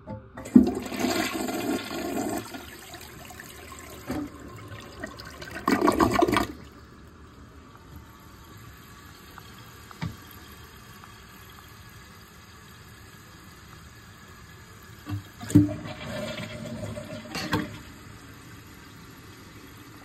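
Old Mansfield toilet flushing, water rushing into the bowl in two loud surges over the first several seconds, then the tank refilling through its fill valve with a steady, quieter hiss. A sharp knock and a short louder stretch of noise come near the end.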